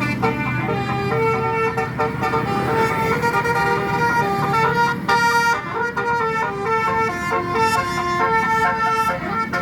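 Tourist bus's telolet basuri multi-tone musical horn playing a melody: a run of held notes, each lasting a fraction of a second, stepping up and down in pitch.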